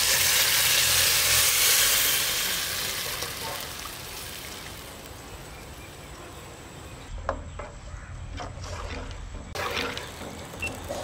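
Tamarind water, mixed with chilli powder and salt, hits the hot oil and fried onions and tomatoes in an aluminium pot and sizzles loudly, the sizzle fading over several seconds. Later a metal ladle stirs the liquid and clicks against the pot a few times.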